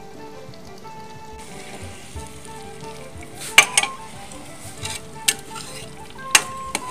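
Potato and pea curry sizzling in a metal pot, with a metal ladle stirring it and clinking sharply against the pot about five times from halfway through. The sizzle comes in about a second and a half in. Background music plays throughout.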